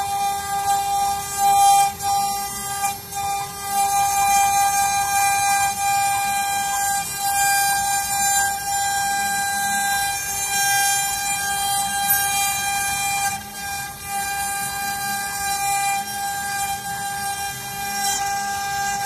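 CNC wood router spindle running with a steady high-pitched whine while the bit carves a relief panel in wood, with a hiss of cutting over it.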